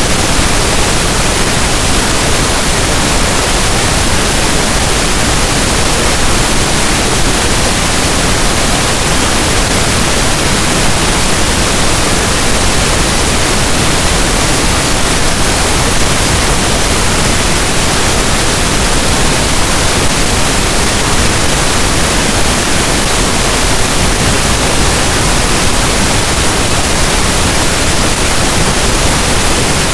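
Loud, steady pink noise: an even, unchanging hiss across the whole range, with no tones or events.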